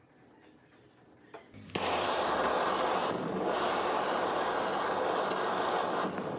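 Loud steady rushing noise of an electric blower-type motor that switches on suddenly about a second and a half in, with a faint wavering whine high in it.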